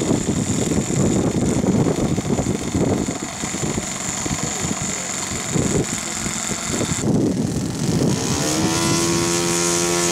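Thunder Tiger 52 four-stroke glow engine on a model airplane running at high throttle with a steady high whine, then throttled back about 7 seconds in and settling to a steady lower running note. Heavy wind rumble on the microphone throughout.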